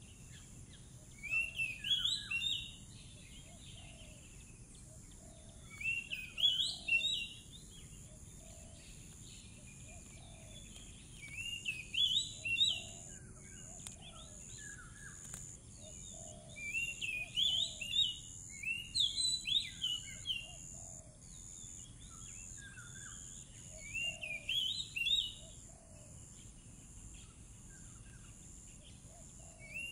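Oriental magpie-robin (kacer) singing in short bursts: a phrase of quick chirping whistles about every four to six seconds, over a steady high-pitched hiss.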